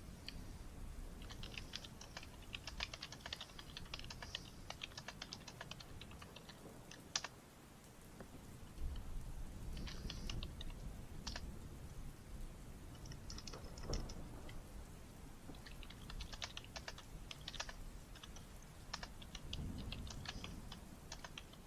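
Typing on a computer keyboard in bursts of quick key clicks with short pauses between them, over a low steady rumble.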